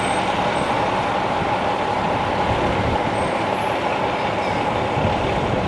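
Buses running at a bus terminal: a steady engine and traffic noise with no breaks.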